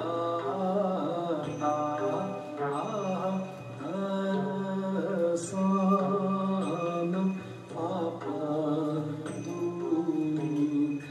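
Newar Buddhist charya song (charya giti) sung as a slow chant, with long wavering held notes in phrases broken by short pauses.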